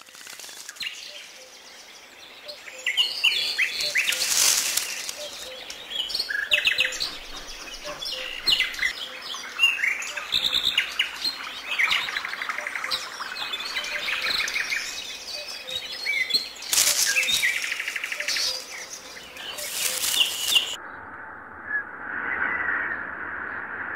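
Many small birds chirping and singing with overlapping calls, broken by a few brief louder rushes of noise. About three seconds before the end the chirping cuts off and a lower, duller sound with a faint hum takes over.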